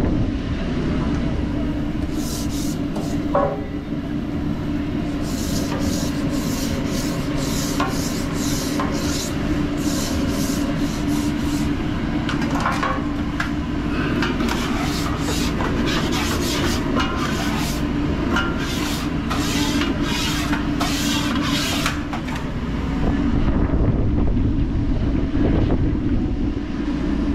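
Repeated short scraping or rubbing strokes, about two a second, over a steady low machine hum; the strokes stop about three-quarters of the way through.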